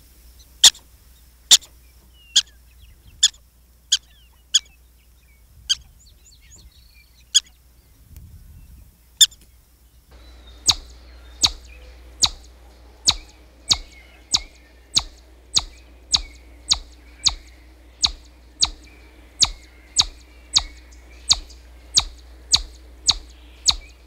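Sharp single chirps from a small animal. They come irregularly at first, then from about ten seconds in as a steady run of about three every two seconds.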